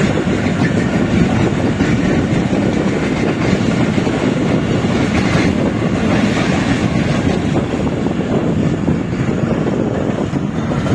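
Pakistan Railways express train's passenger coaches running past on the track, a steady, loud noise of wheels on rail.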